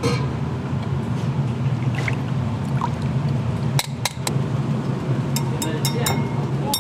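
Seasoning oil ladled and poured into a ramen bowl, with a metal ladle and spoon clinking against the bowl: a few sharp knocks about four seconds in, then a quick run of ringing clinks near the end. A steady low hum runs underneath.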